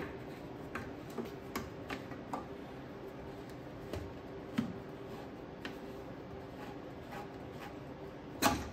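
Scattered light plastic clicks as a plastic cap is twisted onto a plastic coolant overflow bottle, with one sharper knock near the end. The cap is riding over the bottle's threads instead of tightening.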